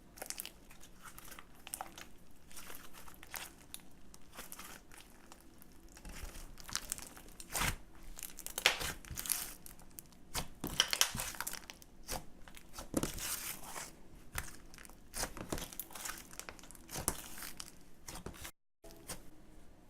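Irregular crinkling and rustling from hands handling the slime kit's materials, with scattered louder crackles; the sound breaks off completely for a moment near the end.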